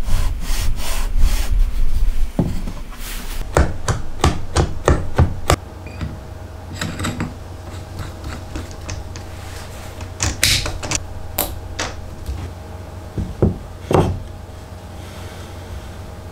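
Handling sounds of plywood jig parts: sharp knocks and rubs as wooden pieces are set down and pushed together, and a steel rod is handled at a cordless drill's chuck. The knocks come thick for the first five seconds or so, then only a few scattered ones.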